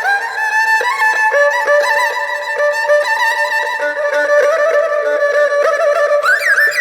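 Erhu playing a slow melody of long held, bowed notes, with quick upward slides near the end.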